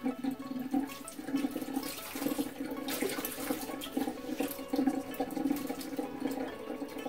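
Kitchen tap running and splashing into a bowl of water as pomegranate seeds are rinsed.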